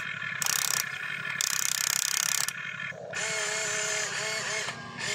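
Radio-controlled model excavator's electric gear motors running in short bursts as the boom and bucket move, with a rapid ratcheting buzz. Over the last two seconds a steady two-note hum, broken now and then, takes over.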